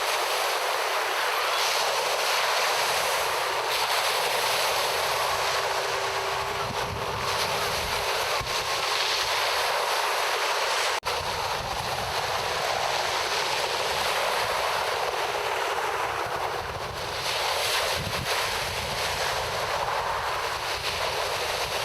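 Steady rush of wind and water heard from a boat at sea, with wind buffeting the microphone; a brief break about halfway.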